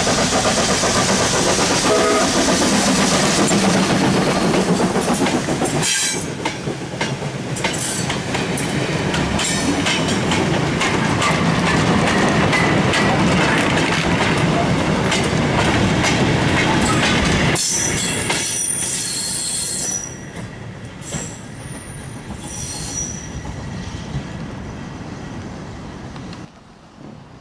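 A steam saddle-tank locomotive running past hauling a freight train of flat wagons and goods vans. After about six seconds the wagons' wheels clatter steadily over the rail joints, then the sound drops off after about eighteen seconds as the train moves away.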